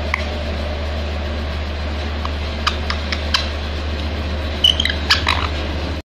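A steady low hum runs under a few faint clicks. A little before five seconds in, a rose-ringed parakeet gives a brief high squeak followed by a few quick clicks and chirps.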